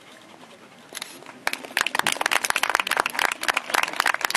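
Audience applauding, breaking out suddenly about a second and a half in as many quick, irregular claps.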